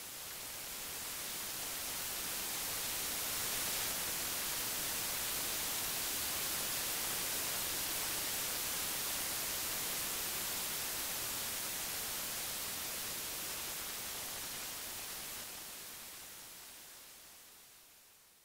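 Static-like hiss of white noise that swells in over the first few seconds, holds steady, then fades away near the end.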